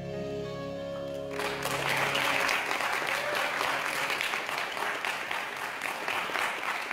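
The held final chord of a song's backing music dies away, and about a second and a half in an audience starts applauding and keeps clapping.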